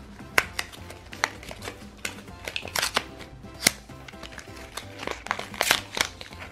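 Small plastic toy shopping basket handled in the fingers: a string of irregular sharp plastic clicks and taps as its handles and frame are moved. Soft background music runs underneath.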